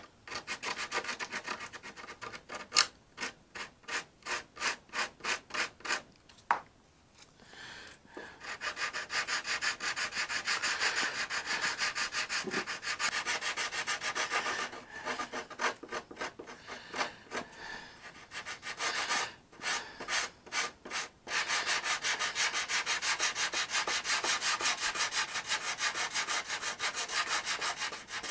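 Sandpaper being rubbed by hand over a hardened filler wing fillet on a balsa model airplane, feathering its edge. It starts as separate strokes about two a second, then goes into long stretches of quick, continuous back-and-forth scrubbing, with a second run of separate strokes in the middle.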